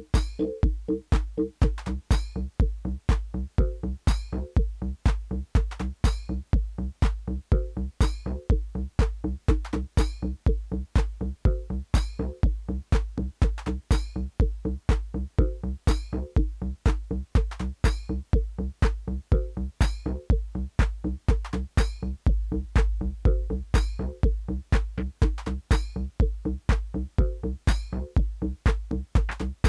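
Live hardware techno: an analog drum machine kick on a steady four-on-the-floor pulse at about two beats a second, with crisp percussion clicks and a repeating synthesizer pattern in the low mids.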